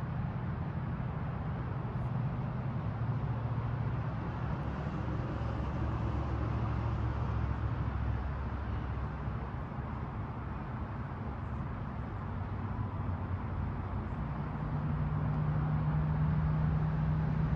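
Steady low rumble of distant motor traffic, with a low engine drone that shifts up in pitch and grows louder about fourteen seconds in.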